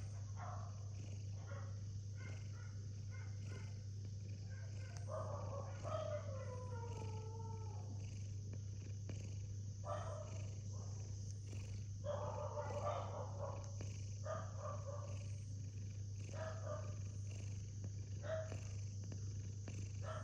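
Sleeping domestic cat snoring: soft, irregular snores about every two seconds, one with a falling whistly tone, over a steady low hum.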